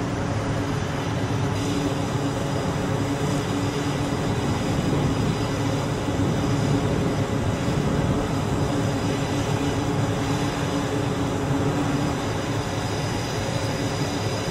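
Jet engines running steadily on a carrier flight deck: an even, loud rush with a low hum and a steady high whine.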